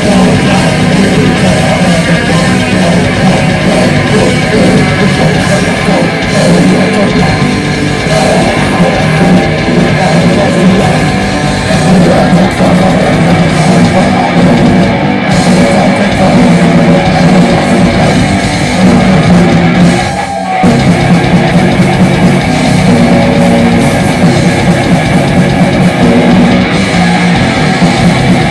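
Heavy metal band playing live: distorted electric guitar, bass guitar and drum kit, loud and dense, with a brief stop about two-thirds of the way through before the band comes back in.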